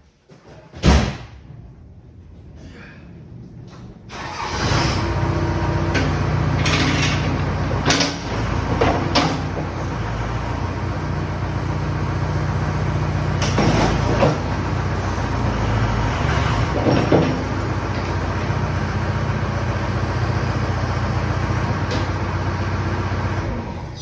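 A sharp bang about a second in, then the tractor-backhoe's engine comes in about four seconds in and runs steadily, with several metal clanks over it.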